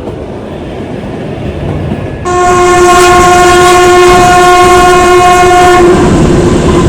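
Kalka–Shimla toy train running, then its horn sounding one loud, steady blast of about three and a half seconds, starting about two seconds in.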